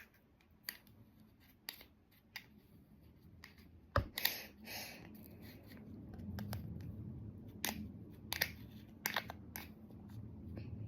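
Kinetic sand being scooped, mushed and scraped with a plastic scooper: scattered scrapes and light taps, one sharper knock about four seconds in, and a steady crumbly scratching through the second half.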